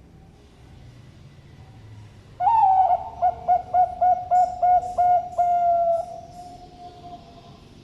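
Zebra dove (Bangkok-type perkutut) singing one deep-voiced coo. It starts about two and a half seconds in with a falling opening note, runs into a string of quick stuttering coos, and ends on a long held note that fades away.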